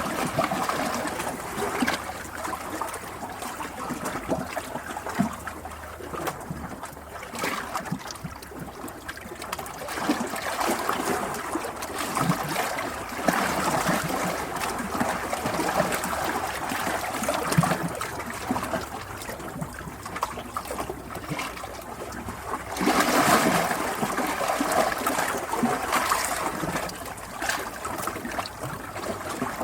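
Running water trickling and gurgling, like a small stream, rising and falling in level with a louder swell about three-quarters of the way through.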